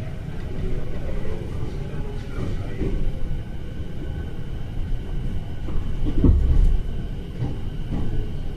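Inside a commuter electric train car: the low rumble of the train running on the rails, with faint steady high tones over it and a louder rumble about six seconds in.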